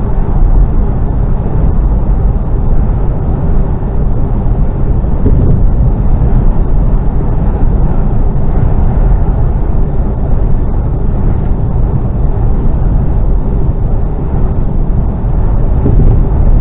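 Mercedes-Benz Actros lorry on the move, its engine and road noise heard from inside the cab as a steady low rumble.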